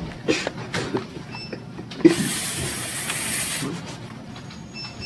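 Mouth noises made by a person with a book held up to his lips: a few short vocal sounds, then about two seconds in a sharp start into a loud hiss of breath that lasts about a second and a half and stops.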